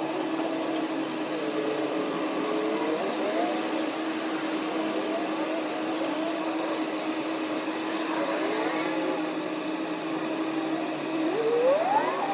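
Gas pump running as it dispenses fuel into a truck, a steady mechanical hum with a constant tone. Engine notes drift up and down over it, and one rises sharply in pitch about a second before the end.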